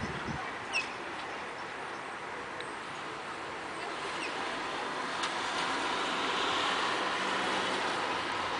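Steady street traffic noise that swells a few seconds in, with a few short, high bird chirps over it.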